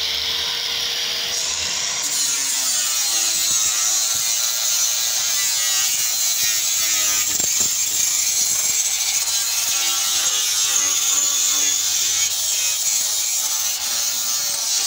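Electric angle grinder with an abrasive disc running against sheet steel: a steady hissing grind as it sands down the bare lower body panel.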